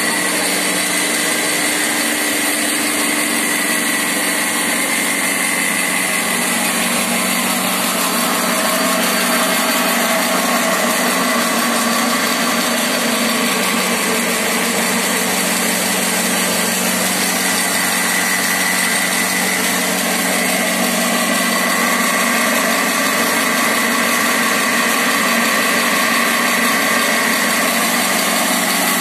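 Plastic recycling extrusion line running, with the strand pelletiser cutting extruded strands into granules: a steady machine drone with a high whine on top.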